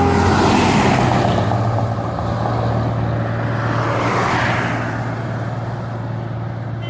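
A Hino bus's diesel engine running with a steady low hum as the bus goes by, its noise swelling again about four seconds in.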